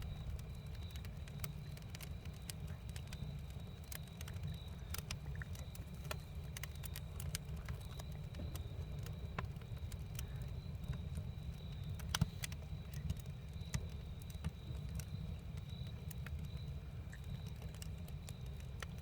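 Campfire crackling: scattered sharp pops and snaps over a steady low rumble, with one louder pop about twelve seconds in.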